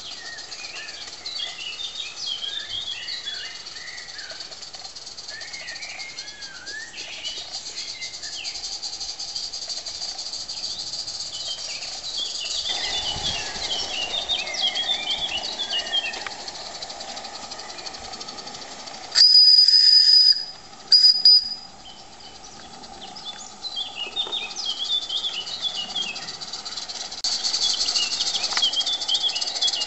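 Live-steam garden railway locomotive (gauge IIm) hissing steadily, with songbirds chirping throughout. About two-thirds of the way through, its steam whistle gives one high blast of over a second, then a short second toot.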